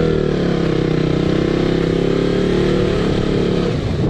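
KTM Duke 200's single-cylinder engine running on the move, its pitch dipping and rising a little as the revs change. The engine note breaks up and drops away near the end.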